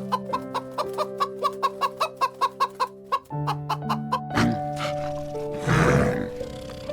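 A chicken clucking, a run of short clucks that speeds up over the first three seconds, over background music with held chords. Near the end a louder, rough, noisy sound breaks in.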